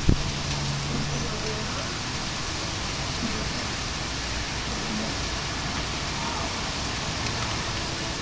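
Steady hiss of rain falling during a thunderstorm, with one sharp knock right at the start.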